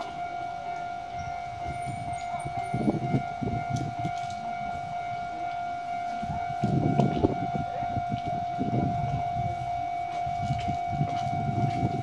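Japanese level-crossing warning bell ringing on one steady electronic tone while the crossing is closed for an approaching Keisei train. Under it runs an irregular low rumble that swells about seven seconds in.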